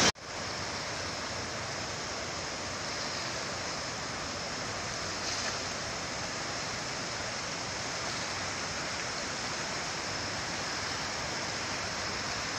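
Chenab River in flood: fast, muddy floodwater rushing past with a steady, even noise.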